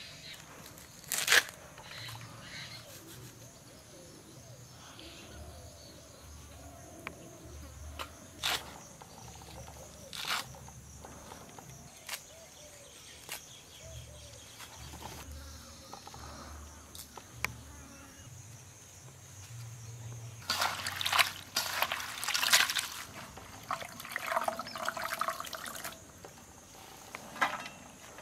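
Red amaranth stems snapping and leaves rustling as they are stripped and cut by hand over a steel bowl, with single sharp snaps every few seconds. A denser run of wet crunching and squelching comes about two-thirds of the way in, as the wet leaves are handled. A faint steady insect buzz runs underneath.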